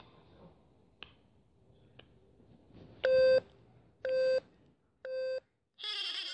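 Time-signal pips: three short, identical beeps one second apart, then a longer, higher tone about six seconds in that marks the second.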